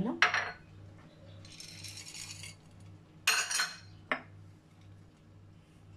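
Chocolate chips tipped from a small dish onto a china plate, with the small dishes handled on a stone countertop: a soft rattling pour about two seconds in, a short clatter about three seconds in, and a small click just after.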